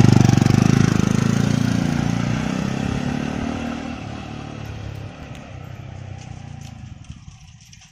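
Jawa 42 single-cylinder motorcycle with twin exhausts pulling away and riding off, its exhaust note loudest at the start and fading steadily as it recedes.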